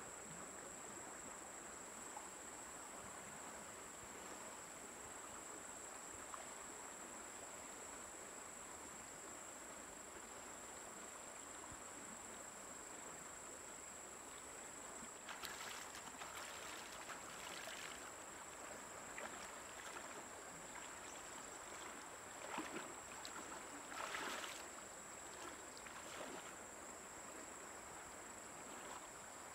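Faint steady river ambience with a constant high insect call, and from about halfway a person wading through shallow water, in short bouts of splashing.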